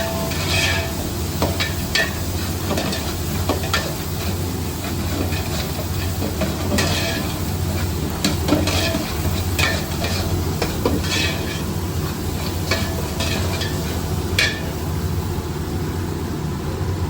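Tomato paste, onions and tomatoes frying in a pot, stirred and scraped with a utensil in irregular strokes, over a steady low hum. The paste is being fried until its raw smell cooks off.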